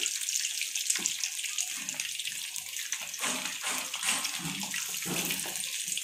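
Chicken drumsticks deep-frying in hot oil in a kadai: a steady sizzle with fine crackling from the bubbling oil, as the pieces are turned over with a slotted spatula.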